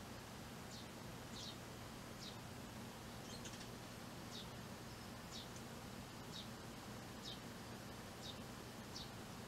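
Eurasian tree sparrow chirping: short, high chirps, each sliding downward, repeated about once a second over a faint steady hum.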